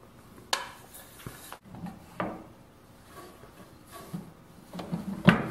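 A few scattered light knocks and clicks of wooden parts of a pedal-and-latch mechanism, with a metal clamp, being handled and set in place, with a louder cluster of knocks near the end.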